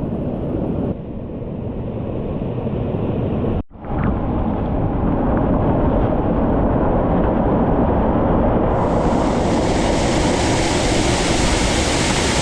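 Waterfall: a steady, loud rush of falling water. It breaks off for a moment about four seconds in, and from about nine seconds in it sounds brighter and more hissing.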